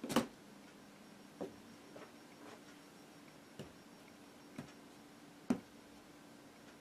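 Handling noise of a LEGO tracked robot being set and adjusted by hand against foam stairs: about seven separate light clicks and knocks of plastic tracks and parts. The loudest come just after the start and about five and a half seconds in.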